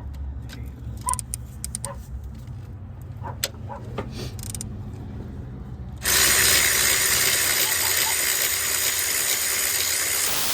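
Light clicks and tool handling, then about six seconds in a power tool's motor starts and runs steadily at full speed for about four and a half seconds before stopping suddenly.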